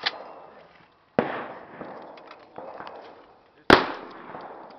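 Two shotgun shots about two and a half seconds apart, the second louder, each trailing off in a long echo.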